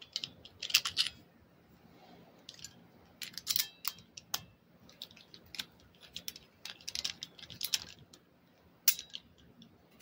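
Steel Darby handcuffs and their screw key clinking and scraping as they are handled, with the key worked at the cuff's lock barrel. The sharp metal clicks come in short clusters, with one sharp click near the end.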